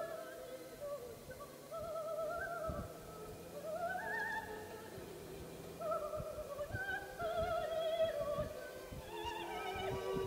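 Background music: operatic singing, long held notes with wide vibrato gliding from pitch to pitch over sustained accompaniment.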